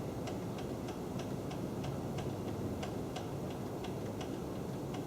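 Light, regular clicking, about three clicks a second, over a steady low hum as the milling machine's table is traversed to run the dial indicator along the vise jaw.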